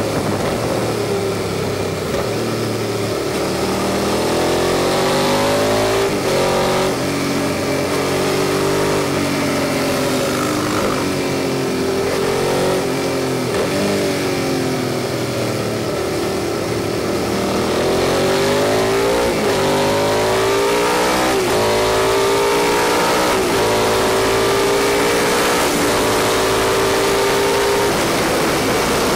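Suzuki SV650's V-twin engine pulling hard through the gears. Its pitch climbs and drops back at each gear change, with a slower dip about halfway through before it picks up again, over a rush of noise.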